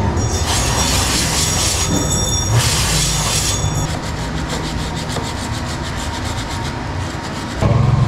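Aerosol chain cleaner sprayed onto a rusty motorcycle drive chain in three short hissing bursts over the first four seconds, to soften the dirt and rust. A fainter, rapid, even ticking follows, and a louder low rumble comes in near the end.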